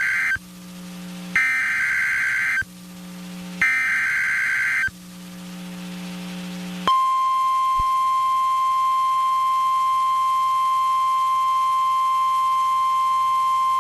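NOAA Weather Radio emergency alert: the end of one burst and then two more bursts of the SAME digital header, each a harsh electronic screech about a second long. These are followed, about seven seconds in, by the steady 1050 Hz warning alarm tone that announces a new severe thunderstorm warning.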